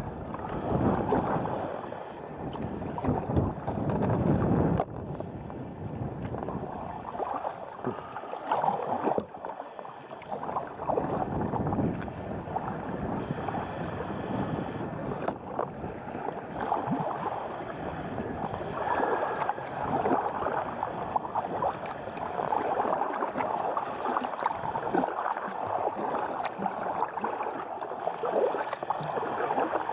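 Water splashing and lapping around a paddled sea kayak, a continuous uneven wash.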